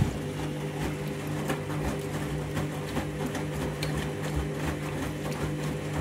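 Candy front-loading washing machine in its rinse cycle: the motor hums steadily as the drum turns, with water splashing and sloshing against the door glass in quick, irregular ticks.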